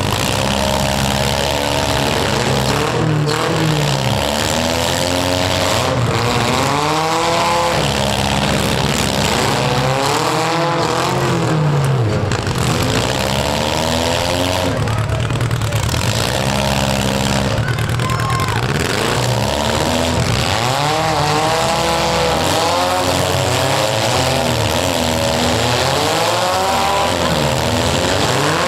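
Engines of several demolition-derby compact cars revving up and down over and over as they push and ram in the mud. The sound is loud and continuous.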